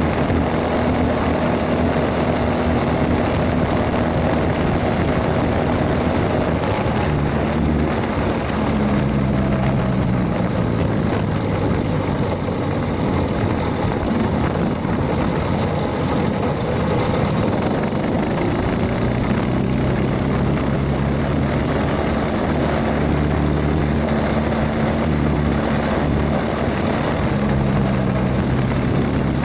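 Mini bike's Predator 212 single-cylinder four-stroke engine running under way, its pitch rising and falling repeatedly as the throttle is worked.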